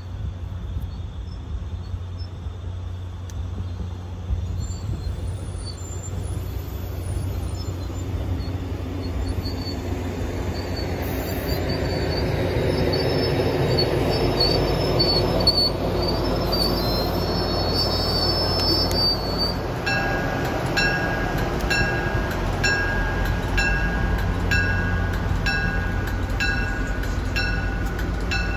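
MBTA commuter rail coaches passing close by: wheels rumbling on the rails, building over the first half, with a high wheel squeal in the middle. From about two-thirds of the way in, a bell-like ding repeats steadily, about three times every two seconds.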